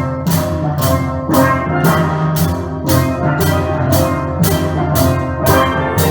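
Steel band playing live: steel pans sounding sustained melody and chord notes over a drum kit keeping a steady beat of about two strokes a second.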